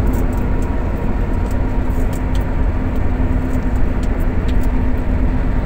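Steady road noise of a car cruising on a concrete toll road, heard from inside the cabin: a low tyre roar with a steady hum and faint scattered ticks.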